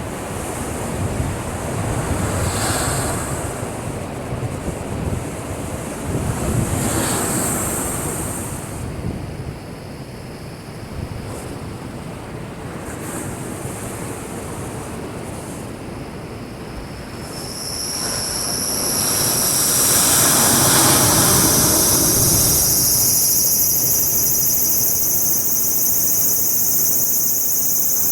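Heavy sea surf surging and breaking against a breakwater in waves, three big surges, the last and loudest about two-thirds of the way in. From about that point a steady high shrill sound joins and keeps on.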